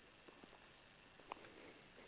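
Near silence with a few faint, scattered clicks; the clearest comes a little over halfway through.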